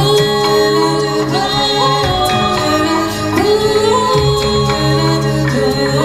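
Mixed vocal ensemble singing in close harmony into microphones, holding long chords and sliding between notes, over a guitar accompaniment.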